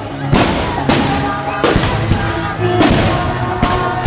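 Fireworks shells bursting in four loud bangs, over music playing throughout.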